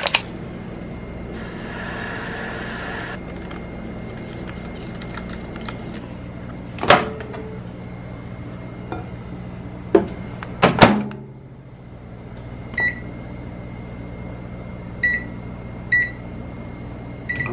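Oatmeal poured from a paper packet into a bowl with a short rustle, then the microwave door knocked open and shut, then four short beeps from the microwave's keypad as the cooking time is set. A steady low hum runs underneath.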